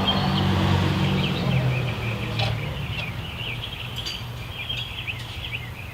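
Small birds chirping in many quick short notes, over a low hum that fades away over the first two seconds.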